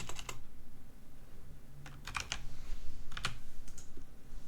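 A few scattered computer keyboard keystrokes, some in quick pairs, spaced out with pauses between them.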